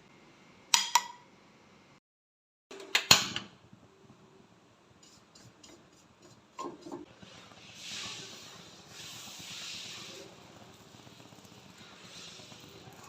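Kitchen utensils and dishes clinking and knocking: two sharp ringing clinks about a second in, a louder clatter about three seconds in, then a few light taps and a soft hiss.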